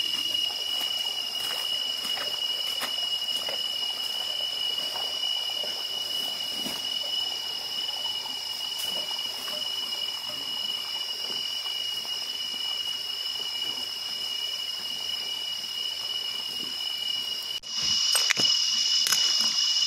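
Rainforest insect chorus: a steady, high-pitched drone of two even tones that holds without a break. Near the end it jumps louder, with a few knocks and rustles.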